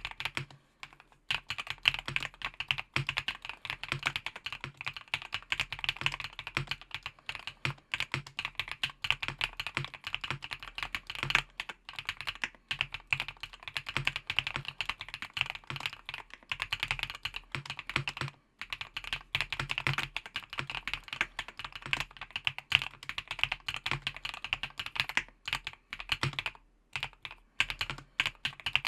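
Continuous fast typing on an EPOMAKER HACK 59 gasket-mount mechanical keyboard with factory-lubed Epomaker Wisteria V1 linear switches, dense keystroke clicks broken by a few short pauses.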